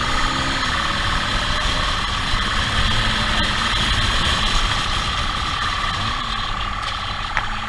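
Police motorcycle's engine running steadily as it rides at speed in pursuit, with rushing noise and a steady high-pitched tone over it.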